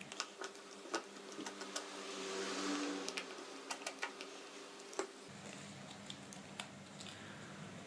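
Faint, scattered small clicks and ticks from a small screwdriver and tiny metal parts being worked while the screws of a cover inside an iPhone 4S are removed.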